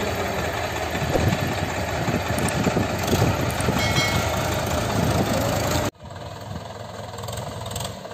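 Diesel tractor engines running loud and close. About six seconds in this cuts abruptly to a single quieter tractor engine, a Mahindra 575 DI, running as it drives.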